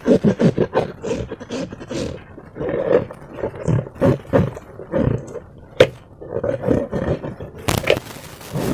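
Slime and rubber balloons being squeezed and worked by hand: a run of irregular wet squelching noises, with one sharp click a little before six seconds in.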